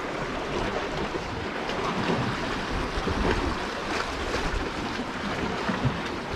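Sea waves washing steadily, with wind rumbling on the microphone.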